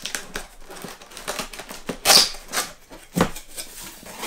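A cardboard box being opened by hand: its flaps pulled open, with scrapes, rustles and taps on the cardboard. The loudest is a short scraping rip about two seconds in, followed by a knock about a second later.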